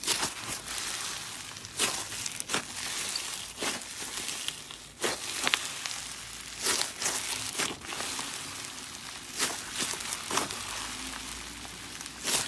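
Slime mixed with clay being kneaded and squished by hand: a continuous wet crackling, broken by frequent irregular sharp pops and clicks.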